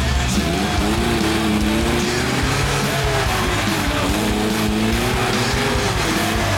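Off-road vehicle engine revving, its pitch rising and falling repeatedly as the throttle is worked.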